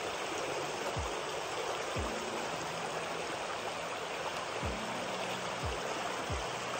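Small rocky stream running over stones: a steady rush of water, with a few soft low thumps now and then.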